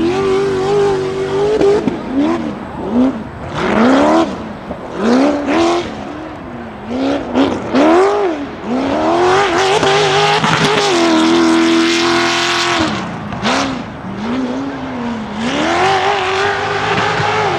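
Off-road race buggy's engine being driven hard, revving up and dropping off again and again, then held at high revs for a couple of seconds just past the middle before the rise-and-fall resumes.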